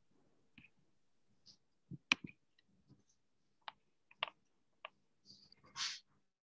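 Faint, scattered clicks, half a dozen or so at uneven intervals, the loudest a small cluster about two seconds in, with a short rustling burst near the end.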